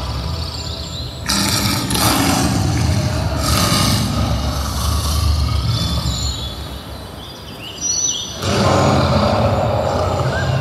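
Outdoor city ambience: a steady low rumble of background noise, with louder swells about a second in and again near the end.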